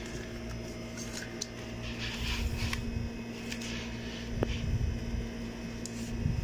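Light clicks and rustles of plastic ID cards and a card wallet being handled while rummaging through a drawer, over a steady mechanical hum.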